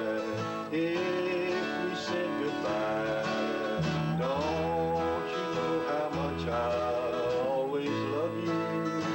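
Country instrumental break in D: a dobro played lap-style with a steel bar carries the lead in sliding notes, over strummed acoustic rhythm guitar and electric bass.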